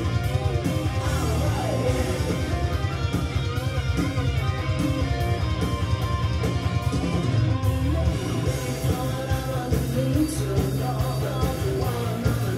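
A rock song with singing and guitar, played from CD on a Technics SL-G570 CD player through a Pioneer A30 amplifier and Symphony 6.4 loudspeakers, heard in the room.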